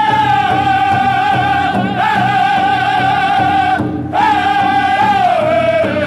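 Powwow drum group singing a contest song: men's voices in unison on a high, held melody over a steady beat on a large shared bass drum. The singing breaks briefly about four seconds in, then comes back and drops lower in pitch.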